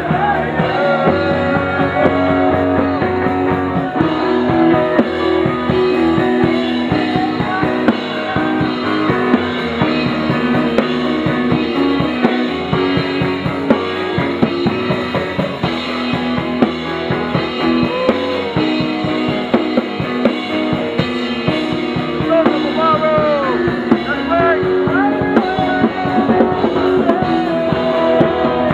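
A live gospel band playing instrumental music on drum kit, bass guitar, keyboard and electric guitar, with a steady beat and melody lines that slide in pitch in the second half.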